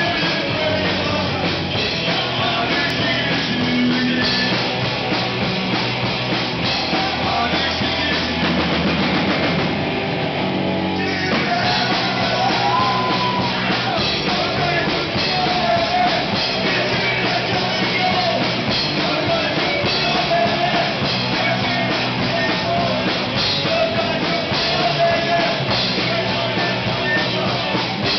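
Loud rock music with a drum kit, playing continuously.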